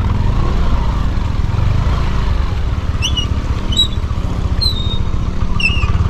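Motorcycle engine running steadily, with a bird chirping a few times over it in the second half.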